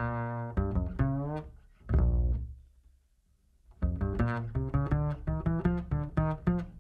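Background music with a low melodic line of separate notes. It pauses for about a second midway, then picks up with a quicker run of short notes.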